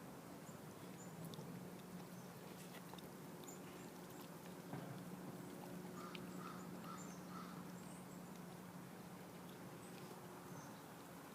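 A Bernese Mountain Dog puppy chewing raw chicken necks: faint, scattered crunching clicks of bone and gristle over a steady low hum.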